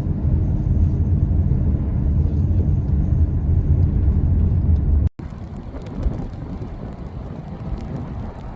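Steady low rumble of a vehicle driving, with a faint steady hum in it. About five seconds in, it cuts off abruptly and gives way to a quieter, rougher rushing noise.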